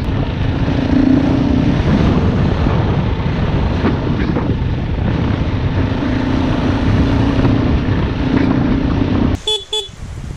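Dirt bike engine running under way, heard up close from the rider's own machine, its note steady with small rises and falls. The engine noise drops away abruptly near the end as the bike stops.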